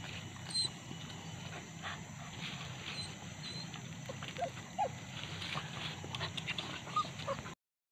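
Leashed boar-hunting dog giving short whines as it pulls through dry leaf litter, with rustling steps. The sound cuts off abruptly near the end.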